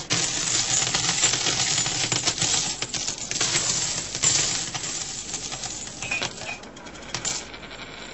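A shower of coins being thrown and clattering down, a dense run of metallic clinks that thins out after about six seconds.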